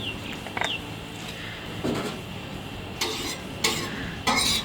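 A metal scraper rasping across a hot 3 mm steel BBQ flat plate in three quick strokes in the second half, with a duller stroke about two seconds in.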